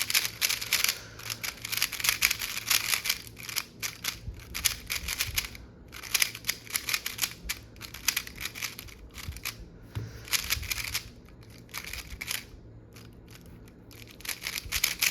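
Weilong V11 3x3 speedcube being turned fast in the hands: rapid runs of plastic clicking from the layers snapping round, with a short lull near the end. The cube is dry, not yet lubed, straight out of the box.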